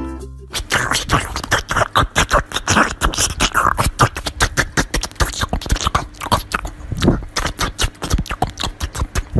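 Small white Pomeranian eating watermelon from a hand: loud, close, rapid and uneven crunching bites, several a second, starting about half a second in.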